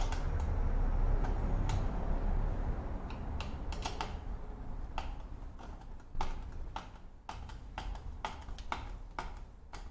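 Irregular small metallic clicks of a hand tool tightening the screen's mounting bolts, over a low handling rumble that fades after the first few seconds.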